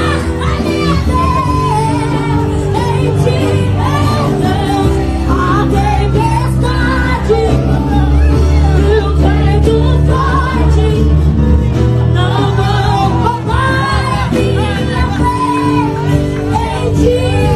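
Song with a voice singing a wavering melody over held low instrumental notes.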